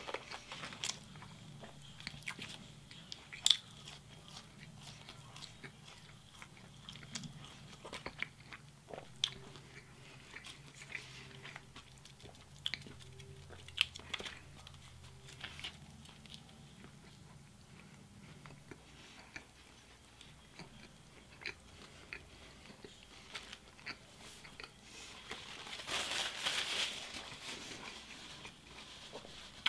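A person chewing a Wendy's Baconator bacon cheeseburger close to the microphone: a string of short wet mouth clicks and smacks. Near the end comes a longer rustle of the burger's paper wrapper, the loudest sound.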